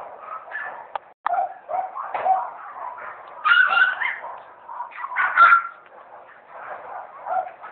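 Toy Cavapoo puppy whimpering and yipping in short, high cries, the loudest about three and a half and five and a half seconds in.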